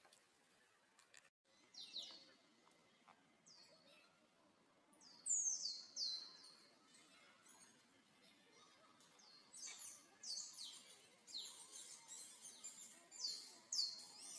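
Short, high-pitched chirping animal calls, each sweeping steeply downward and then leveling off, repeated in clusters from about two seconds in, most frequent in the second half.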